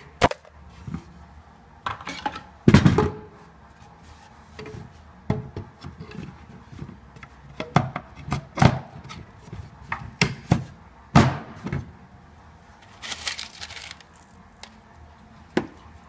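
Cedar bee-box panels knocking and clattering against each other and the workbench as the box is put together: scattered wooden thunks at irregular intervals, the loudest about three seconds in and again about eleven seconds in.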